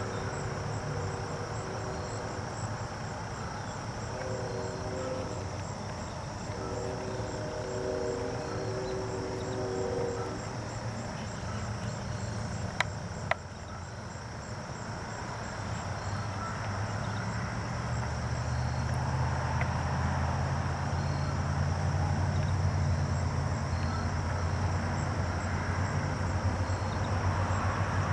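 Steady background noise with two sharp clicks near the middle and a low rumble that swells from about two-thirds of the way in.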